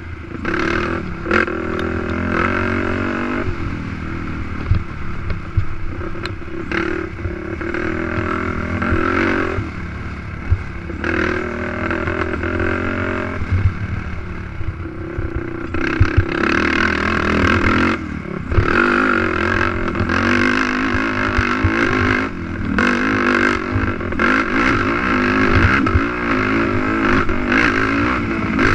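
Racing ATV engine revving up and falling back again and again as the quad is ridden hard, with knocks and clatter from the machine over rough ground.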